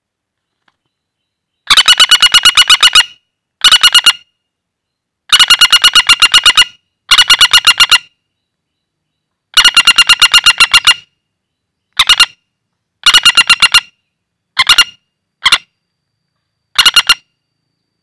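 Common flameback woodpecker giving its rattling call: about ten bursts of fast, even notes, about ten a second. The longer bursts last over a second, the shorter ones only a few notes, with silent gaps between.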